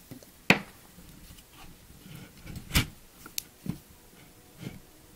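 Handling noise of a rope lashing being worked on wooden poles: a few sharp knocks of the poles bumping, the loudest about half a second in and another near three seconds, with quieter rope and hand rustling between.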